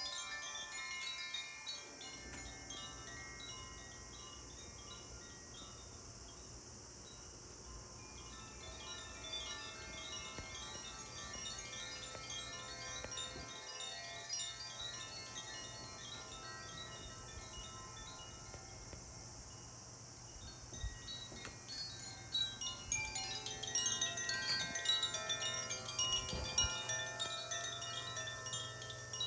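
Healing chimes played by hand in a sound bath: a continuous shimmer of many overlapping ringing tones, growing louder and denser near the end.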